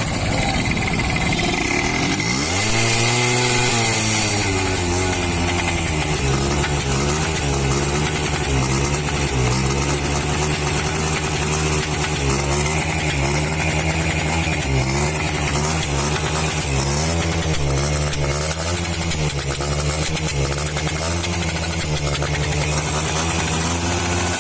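H100S motorcycle's small single-cylinder engine running, with a rev that rises about two seconds in, then holding a fast idle whose pitch wavers and stumbles unevenly. The bike has a misfire that the mechanic is diagnosing.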